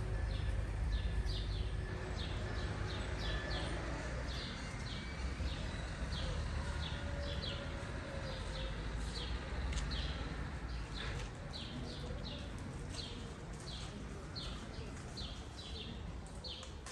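A small bird chirping over and over, short high chirps about two a second, over a low rumble that eases after about eleven seconds.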